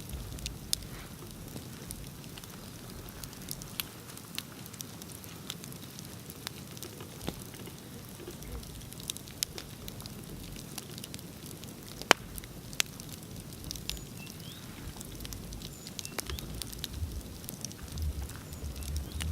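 Bonfire crackling: irregular sharp pops and snaps over a low steady rumble, with one much louder pop about twelve seconds in.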